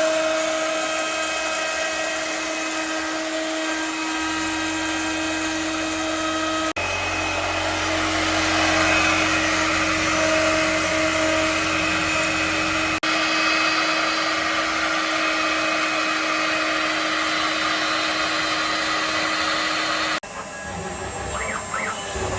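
CNC router-mill spindle milling aluminium: a steady high spindle whine over the grinding hiss of the cutter in metal. The sound changes abruptly a few times, and it drops quieter near the end.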